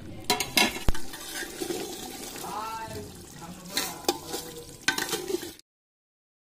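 Metal ladle stirring chicken curry in an aluminium pot, scraping through the thick gravy with several sharp clinks against the pot's side. The sound cuts off suddenly about five and a half seconds in.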